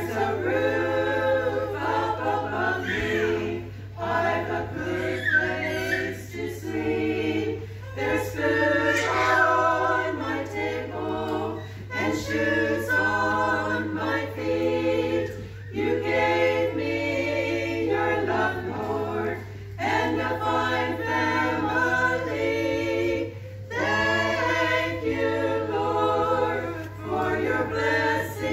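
Small choir of older women singing together unaccompanied, in sung phrases with brief breath pauses between, over a steady low hum.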